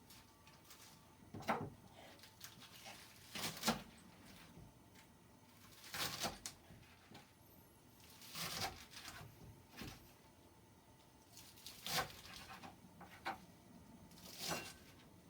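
Scattered kitchen handling sounds: about six separate short knocks and rustles at irregular gaps, as utensils, dishes and herbs are moved about.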